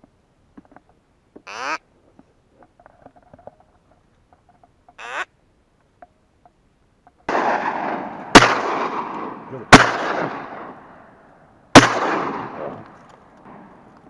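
Short duck quacks, twice in the first five seconds, then shotgun fire during duck hunting. A duller blast comes about seven seconds in, then three sharp, loud shots over the next four seconds, each trailing off in a long echo.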